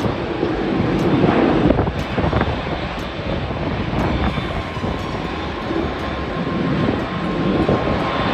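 Jet airliner engine noise, a steady rumble.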